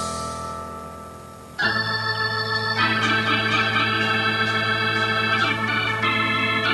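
Background music: a held chord fades away, then an organ comes in with sustained chords about a second and a half in, changing chord about a second later.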